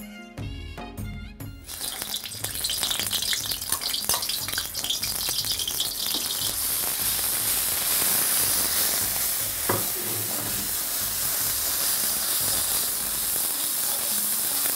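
Onion and mint paste sizzling in hot oil in a wok while a steel ladle stirs it. The sizzling starts about two seconds in, after a moment of background music, and then holds steady.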